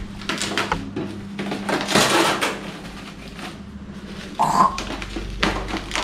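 Handling noises as a plastic-wrapped pet carrier is opened to let an African grey parrot out: rustling plastic with clicks and knocks, and a brief higher-pitched sound about four and a half seconds in.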